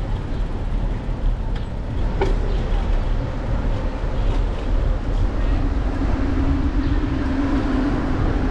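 Wind rumble on a bicycle-mounted GoPro's microphone while riding, with tyre and street noise. There is a single knock about two seconds in, and a steady low hum comes in about halfway through.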